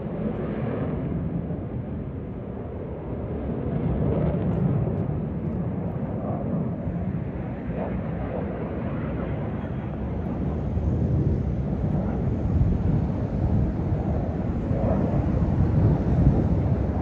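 Jet aircraft engines: a steady low rumble that swells and eases slightly.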